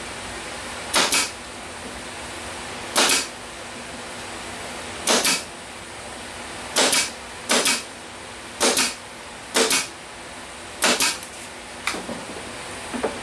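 Pneumatic nailer firing eight times, one shot every second or two, each a sharp pop of the driver with a hiss of exhausting air, as nails are driven through a wood strip into plywood. A few lighter clicks near the end.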